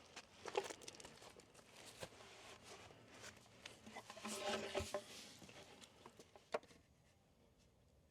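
Faint scraping, rustling and light knocks of hand work at a freshly dug post hole, busiest about four to five seconds in, with a sharp click about six and a half seconds in.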